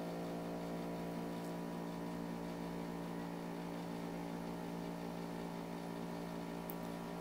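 Steady electrical hum, a buzz of many evenly spaced tones, with a couple of faint ticks.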